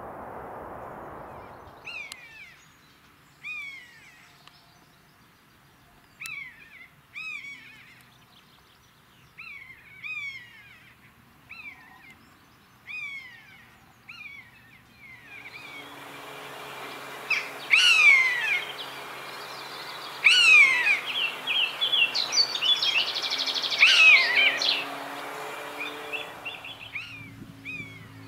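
Common buzzard (Buteo buteo) mewing in flight: a series of short, downward-slurred calls, about one a second. About halfway through, the calls grow louder over a steady background hiss.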